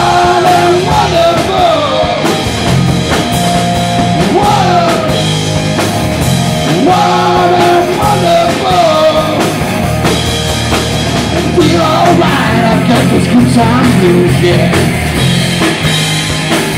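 Live rock band playing loud: electric guitars, bass guitar and drum kit, with a lead line of long held notes that bend up and down over the steady rhythm.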